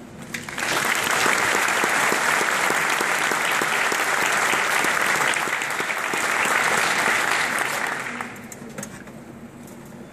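Audience applause, starting about half a second in and dying away after about eight seconds.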